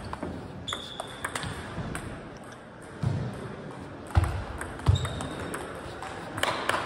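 Table tennis rally: the celluloid-type ball clicking sharply off the bats and table again and again, with heavier dull thumps every second or so and a couple of brief high squeaks from shoes on the hall floor.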